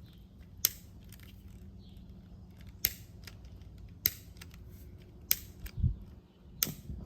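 A lighter clicking again and again, a sharp click every second or so, as someone presses down hard and struggles to get it lit. A low bump of handling comes near the end.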